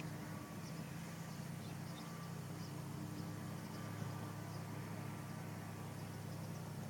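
A steady low hum, with faint high chirping of insects over it.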